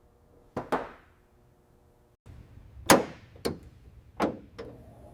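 Sharp metallic clangs and knocks with a brief ring after each: two close together about half a second in, then four more, irregularly spaced, in the second half.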